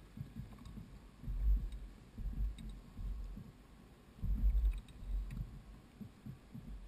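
Low rumbling bumps and buffeting on a kayak's deck-mounted camera, swelling loudest about a second and a half in and again about four and a half seconds in, with a few faint clicks as the paddler handles gear at his chest.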